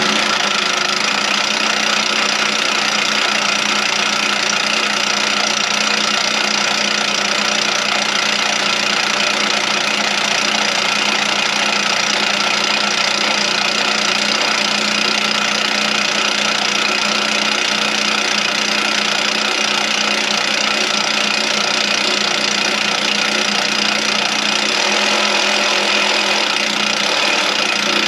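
A motor or engine running at one steady speed, cutting in abruptly, with a constant pitch and an even mechanical hum.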